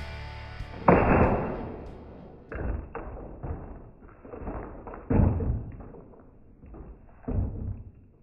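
Bowling ball dropped from height striking a MetroMax plastic shelf with a loud heavy thud about a second in. A series of further thuds and knocks follows, the strongest about five seconds in.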